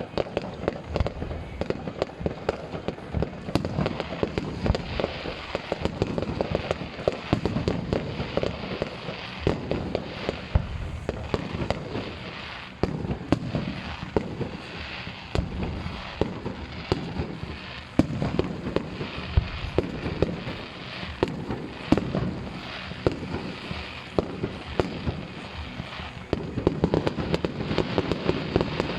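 Fireworks display: a continuous, irregular volley of bangs and crackling pops over a low rumble of booming shells, growing busier near the end.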